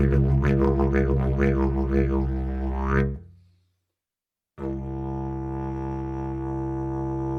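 Didgeridoo drone, a low continuous tone with rhythmic wah-like sweeps about twice a second. It stops about three seconds in and fades out. After a second of silence a new, plain steady drone begins.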